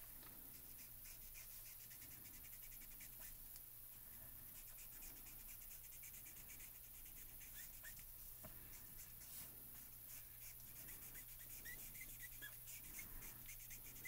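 Faint scratching of a Copic alcohol marker's nib stroking over cardstock in short, quick strokes, over a low steady hum.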